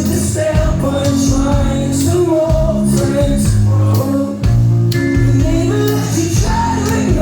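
Live rock band playing: a sung vocal over guitars and drums, loud, with regular drum and cymbal hits and a brief drop in the band a little past the middle.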